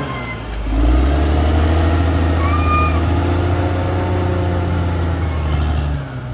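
Caterpillar D6R XL bulldozer's diesel engine running, revving up about half a second in and then holding steady. A brief high squeal comes near the middle.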